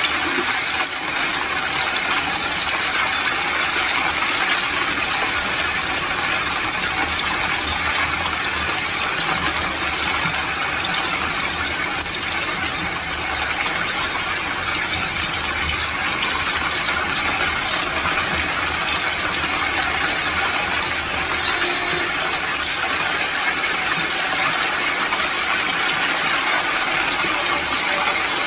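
Steady hiss of heavy rain on a vehicle's windshield and body, heard from inside the moving vehicle, with a low rumble underneath.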